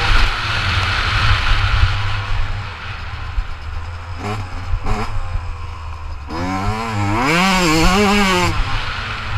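Yamaha two-stroke dirt bike engine, heard from the rider's helmet. It runs hard at first, then backs off with two short throttle blips. Near the end it revs up again, the pitch wavering up and down.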